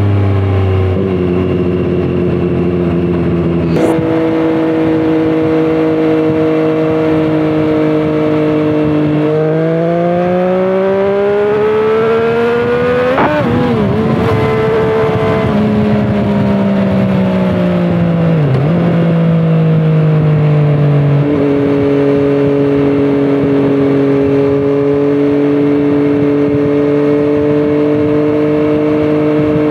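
Triumph Street Triple 765 RS inline-three engine through a Scorpion Serket Taper carbon exhaust, heard from the rider's seat. The revs step down twice in the first few seconds as it shifts up, climb under acceleration to a sharp dip around thirteen seconds in, fall away under engine braking, then hold steady at cruising revs.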